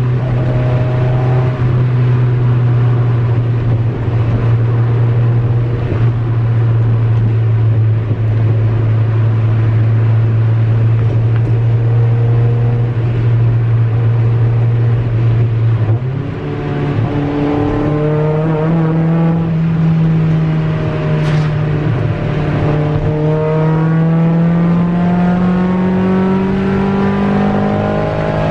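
Mazda MX-5 four-cylinder engine on individual throttle bodies, heard from inside the cabin while driving. It holds a steady note at cruise, dips briefly about halfway through, then its pitch climbs slowly as the car pulls.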